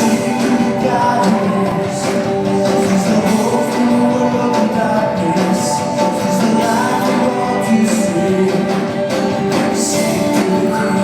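A live worship band playing a song, guitars prominent, with singing over it.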